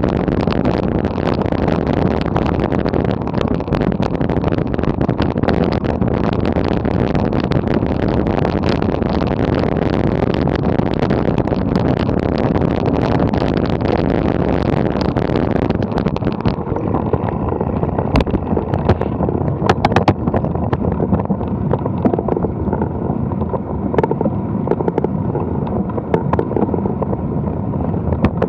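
Mountain bike rolling and rattling over a rough dirt track while coasting, with wind on the camera microphone. About halfway through the hiss drops away and the noise turns duller, with a few sharp clicks and knocks.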